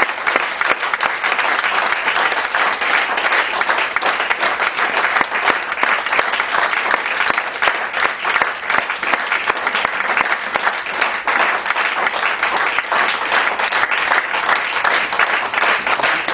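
Theatre audience applauding at a curtain call: many hands clapping in a dense, steady stream that neither builds nor fades.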